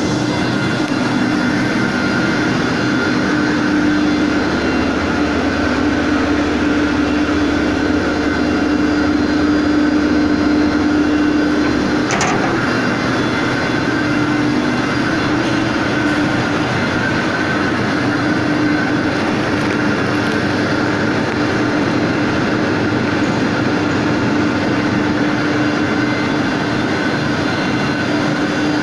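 Circular multi-deck vibratory screen grading plastic granules by size, running with other recycling-plant machinery: a steady mechanical hum carrying a low tone and a higher tone. About twelve seconds in comes a single short click, and a deep rumble underneath drops away.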